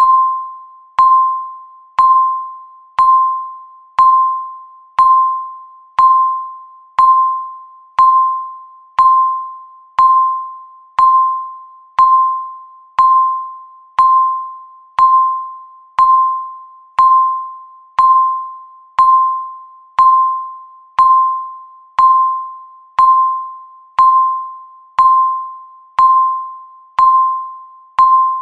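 Countdown timer's tick sound marking every second: one sharp tick a second, each with a ringing, bell-like tone that fades before the next.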